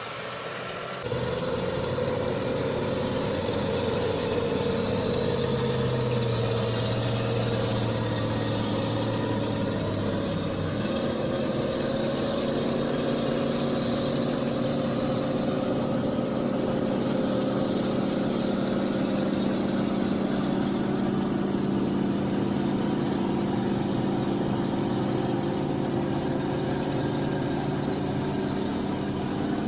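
Heavy machinery's diesel engine running steadily, its note changing about a second in and again near eleven seconds.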